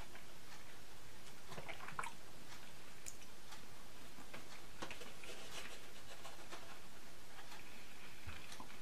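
Faint eating sounds: a metal spoon clicking and scraping now and then in a plastic frozen-dinner tray, with soft chewing, over a steady low hiss.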